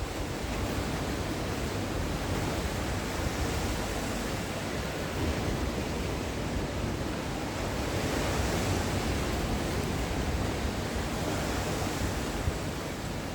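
Sea waves breaking on a shore: a continuous surf wash that swells a little now and then, with no single crash standing out.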